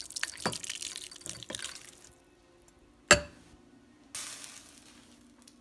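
A metal fork stirring ramen noodles in broth in a bowl: wet sloshing and small clinks for about two seconds, then one sharp clink of the fork against the bowl about three seconds in. Near the end comes a short hiss that fades, over a faint steady hum.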